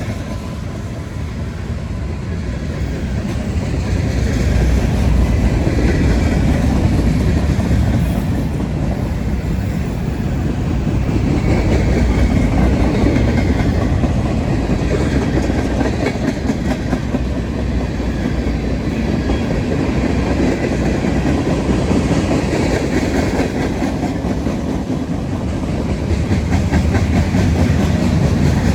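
CSX freight train rolling past: a steady, loud rumble of wheels on the rails with clickety-clack over the rail joints.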